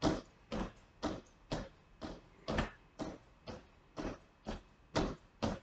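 Trainers landing on a wooden floor during star jumps (jumping jacks): short thuds about twice a second as the feet land out and in, some landings doubled as one foot touches down just before the other.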